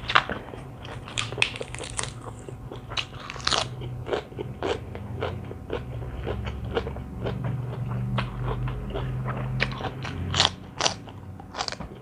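Close-up chewing and crunching of a mouthful of spicy seafood rice-noodle salad with raw vegetables, with many irregular crisp crunches.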